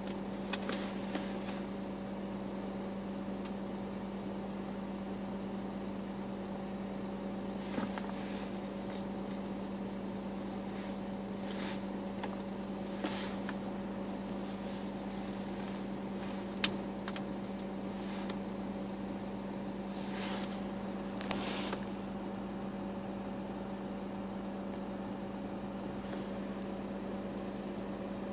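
Steady mechanical hum inside a car, with a few faint clicks and rustles and one sharper click a little past the middle.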